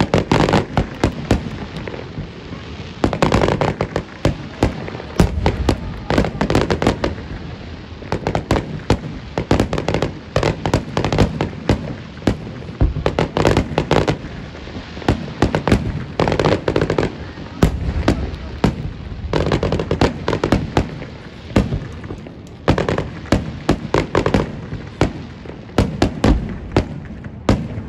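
Fireworks display: aerial shells bursting one after another, a near-continuous run of sharp bangs and crackles in dense clusters.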